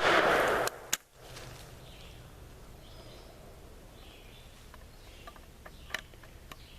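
The tail of a .410 shotgun blast from an H&R Pardner single-shot, its report dying away in the first moments and cut off sharply, then a single click about a second in. After that, faint outdoor quiet with a few small ticks.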